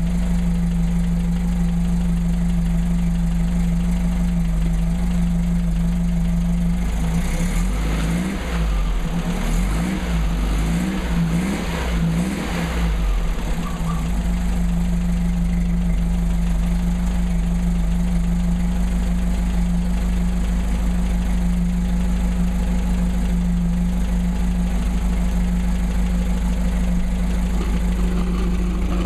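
Volkswagen Beetle's air-cooled flat-four running through a custom exhaust with a Flowmaster 40 Series muffler, idling steadily. From about seven seconds in, the revs are blipped up and down several times for about seven seconds, then it settles back to idle.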